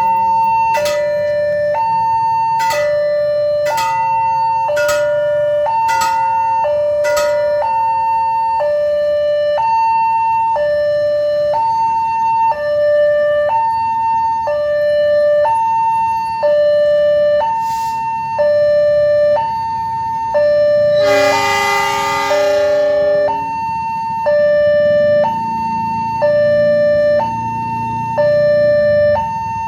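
Level-crossing warning siren sounding a steady high-low two-tone alarm, about one high-low pair every two seconds, with sharp strikes at each tone start during the first several seconds. A little past the middle a train horn blasts once for about two seconds, and a low rumble comes up near the end.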